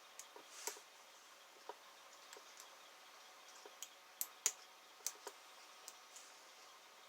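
Faint, irregular clicks and ticks of a thin 0.013-inch lock pick working the pins of a five-pin Yale pin-tumbler lock, with a few sharper clicks about halfway through.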